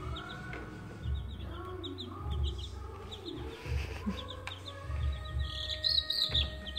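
Baby chicks peeping: a continuous run of short, high cheeps, several a second, briefly louder about six seconds in.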